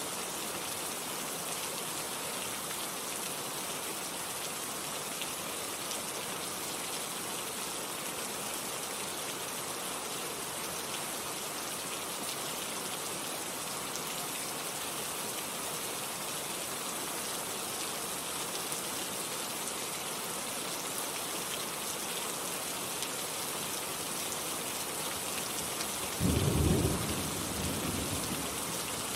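Steady rain falling, a dense, even hiss. Near the end, a short, low roll of thunder is the loudest moment, fading over a couple of seconds.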